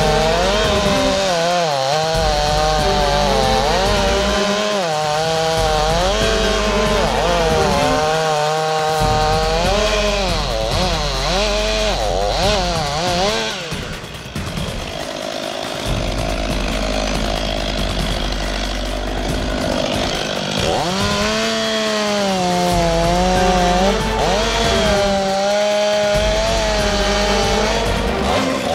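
Petrol chainsaw cutting into the base of a large tree trunk, its engine pitch rising and falling as it works through the cut. The saw drops out for a few seconds about halfway, then cuts again.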